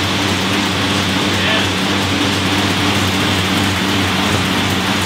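Air bike's fan wheel whooshing steadily as the bike is pedalled and pushed hard, with a steady low hum underneath.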